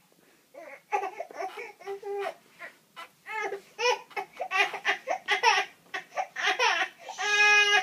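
A baby fussing in short, rapid, high-pitched cries, then going into one long held wail near the end. The baby is protesting at being hoisted up in a woven back-carry wrap.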